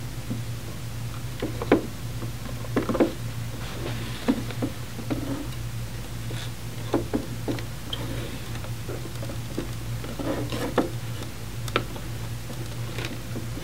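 Scattered faint clicks and taps of plastic sample tubing and fittings being handled and pushed back onto the gas sensor inside a portable gas analyzer, over a steady low hum.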